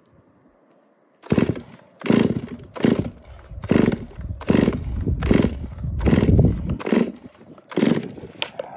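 Old Stihl 046 two-stroke chainsaw being pull-started over and over, about nine quick pulls in a row, each one a short burst of the engine turning over without catching: the saw won't start.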